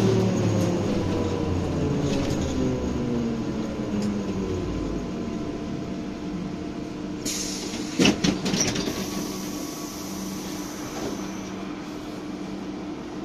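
BTZ-5201 trolleybus heard from inside the cabin as it slows: the traction drive's whine falls in pitch over the first few seconds above a steady electrical hum. About seven seconds in a hiss of compressed air starts, and a couple of sharp clicks a second later are the loudest moment.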